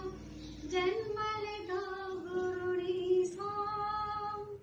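A young child singing a slow tune in a high voice, holding long notes.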